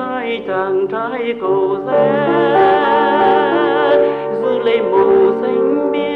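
A sung song over instrumental accompaniment. About two seconds in, the singer holds a long note with a wide vibrato.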